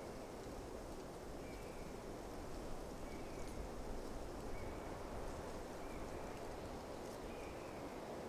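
Steady low wash of sea and wind over a calm tidal flat, with a faint short bird call repeated five times, about every second and a half.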